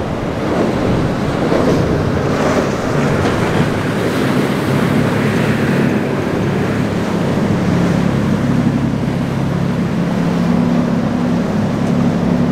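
Sportfishing boat's engines running hard through rough surf, a steady low drone that comes through clearly from about four seconds in, over the rush of breaking waves and spray and wind buffeting the microphone.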